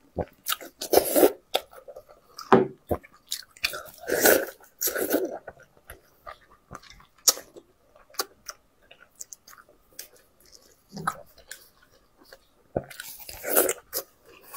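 Close-miked eating of braised sheep's head: biting meat off the bone and wet chewing, in irregular bursts with sharp mouth clicks, busiest in the first few seconds and again near the end.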